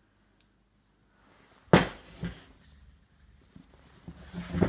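Metal spoked wheel of a miniature Burrell traction engine being handled on a wooden workbench: one sharp knock about two seconds in, a lighter knock just after, then a louder clatter of metal on wood near the end.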